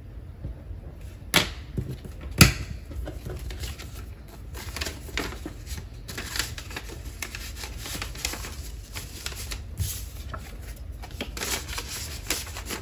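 Paper bills and a paper cash envelope rustling and crinkling as the cash is handled and stuffed into the envelope. Two sharp knocks about a second apart come near the start, the second the loudest sound here.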